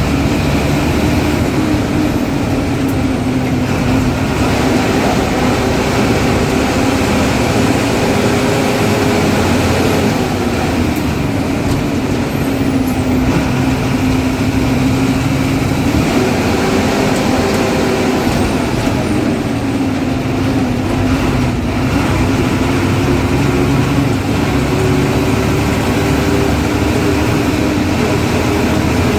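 Ashok Leyland diesel engine of a KSRTC Minnal bus running on the road. Its pitch drops and then climbs again several times, with the biggest falls about a third of the way in and the climbs in the second half.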